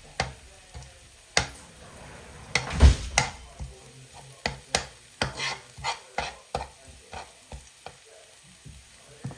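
Onions and garlic sizzling in a frying pan as they are stirred, with a utensil scraping and knocking against the pan at irregular moments, loudest about three seconds in.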